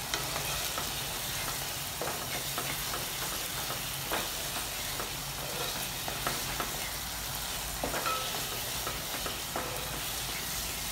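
Minced mutton with tomatoes frying on high heat in a non-stick kadai, sizzling steadily, while a wooden spatula stirs it with irregular scrapes and knocks against the pan.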